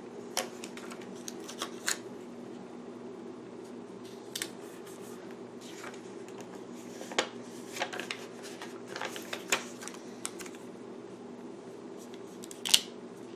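Scattered small clicks and papery rustles of planner stickers being peeled from their sheet and pressed onto a paper page, with a sharp click near the end, over a steady low hum.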